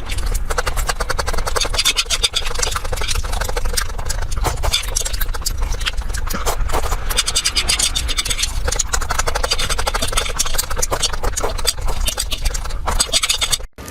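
Close-miked chewing, a rapid run of many small wet clicks and crunches, with a brief drop-out near the end.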